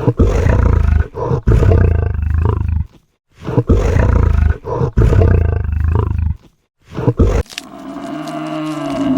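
A large animal roaring: two long, deep roars of about three seconds each, then a short one, followed by a drawn-out pitched call that swells near the end.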